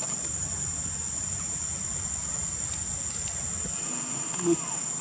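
Insects in the surrounding vegetation calling in a steady, high-pitched shrill chorus. A single brief, louder sound comes about four and a half seconds in.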